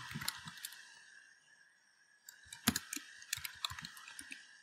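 Computer keyboard typing: scattered key clicks, most of them in a quick run from about halfway through, over a faint steady hum.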